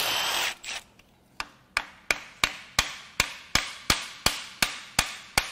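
A short burst from a cordless power tool on the vacuum pump bolts, then about a dozen even mallet taps, roughly three a second, knocking the engine's brake vacuum pump loose from the cylinder head.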